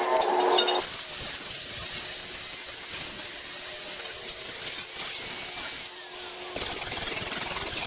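Steady hissing noise of workshop tools at work, changing abruptly just under a second in and again about six and a half seconds in.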